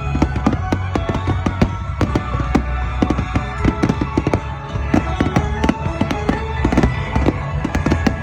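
Fireworks display going off in a dense barrage: many sharp bangs and crackles in quick succession. Music plays underneath.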